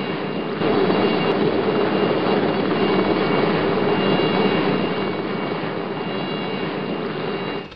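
Aircraft engine running steadily, with a high whine over the noise. It gets louder about half a second in, eases back after about five seconds, and cuts off suddenly at the very end.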